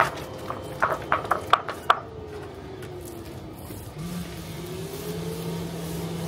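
A steady low motor hum that cuts out and starts up again about four seconds in, with a fainter tone sliding down and back up in between, and a few sharp knocks in the first two seconds.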